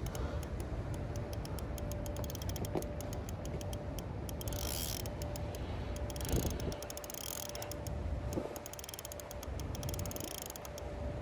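Spinning fishing reel clicking rapidly and steadily as line is worked against a hooked catfish snagged in submerged trees, over a low rumble.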